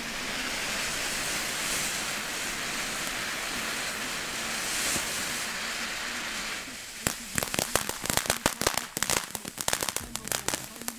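A ground firework hissing steadily as it sprays sparks, then about two-thirds of the way in it breaks into a rapid run of sharp crackling pops.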